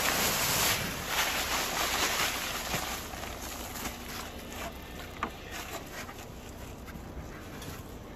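Dry concrete mix pouring out of a paper bag into a hole, a rushing hiss that tapers off after about three seconds, followed by a few light ticks and scrapes.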